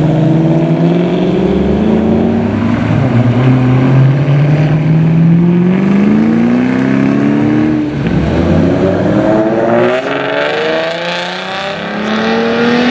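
Several Ford Mustangs pull away one after another, their engine notes rising in pitch as they accelerate. The note falls back and climbs again a couple of times.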